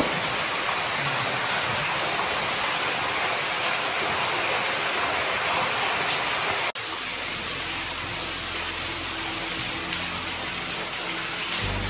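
Water pouring and splashing from a small waterfall inside a rock cave, a steady dense rush. It breaks off abruptly about seven seconds in and resumes a little quieter under steady low tones.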